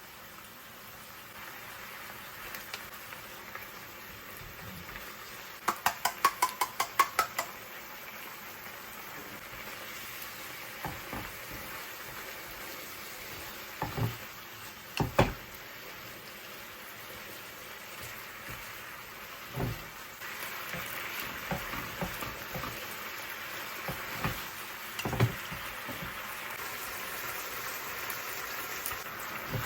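Chicken thigh pieces sizzling in a frying pan while being stirred, with a quick run of clicks about six seconds in and a few utensil knocks against the pan.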